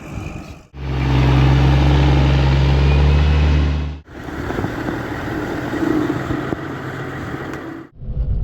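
Heavy diesel logging equipment running, in short cut-together clips: a loud, steady engine hum from about one to four seconds in, then a rougher, noisier stretch of machine running; each clip cuts off suddenly.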